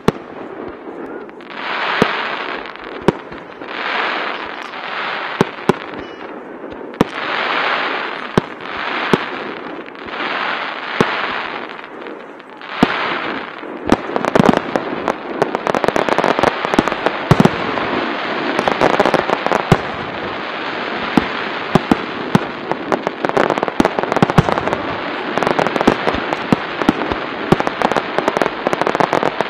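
Starmine fireworks barrage: sharp shell bangs over a hissing swell that comes about once a second. About halfway through it turns into a dense, continuous crackle studded with rapid bangs.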